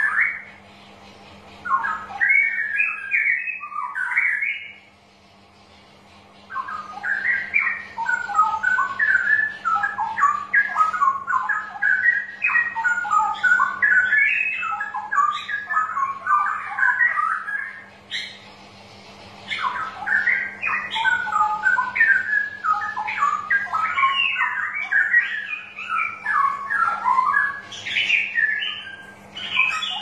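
Straw-headed bulbul singing a fast run of varied whistled notes in long phrases, pausing briefly about five seconds in and again near eighteen seconds, over a steady low hum.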